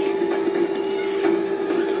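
A steady, unbroken droning tone with a faint clatter, coming from a video's soundtrack played through computer speakers and picked up off the room.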